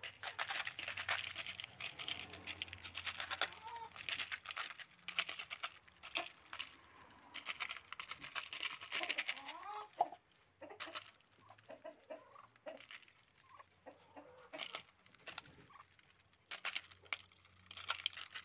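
Muscovy ducks pecking corn kernels from a plastic bowl: a rapid, irregular clicking and rattling of bills on grain and plastic. A few soft, short calls from the birds come about halfway through.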